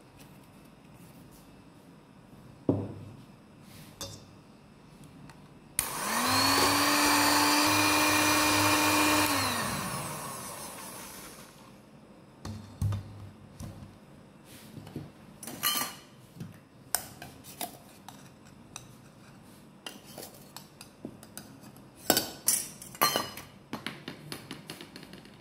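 Electric hand mixer with twin wire beaters whirring in a steel bowl of egg, sugar, oil and vanilla batter: it spins up about six seconds in, runs steadily for a few seconds, then winds down. Scattered knocks and clicks follow, the densest cluster near the end.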